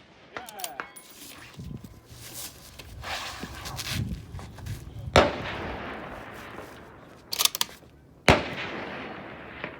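Two precision rifle shots about three seconds apart, each followed by an echo that rolls away over a second or more, with a brief clatter of sharp clicks shortly before the second shot.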